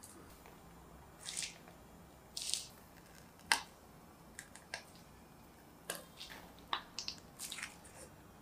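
Disposable plastic piping bag being squeezed as mousse is piped out: short, scattered crinkles and soft squishes, with one sharp click partway through.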